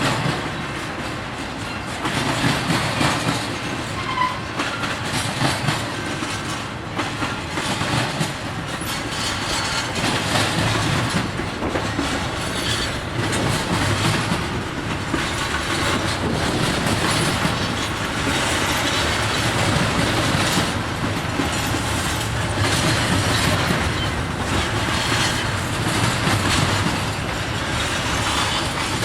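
Freight train cars rolling past at steady speed, their steel wheels clicking over rail joints and the cars rattling.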